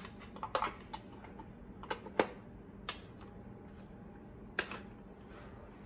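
Scattered sharp clicks and taps as metal beaters are fitted into a plastic electric hand mixer, about five in all, the loudest about two seconds in. The mixer motor is not running.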